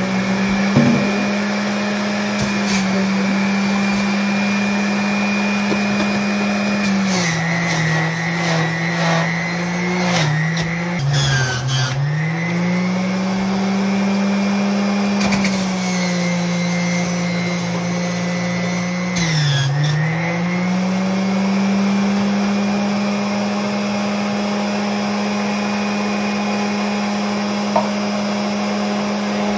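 Electric centrifugal juicer motor running with a steady whine. Its pitch sags and recovers several times, about a quarter of the way in, around a third and again around two-thirds, with a crackling grind as cucumber and other produce are pushed through and load the motor.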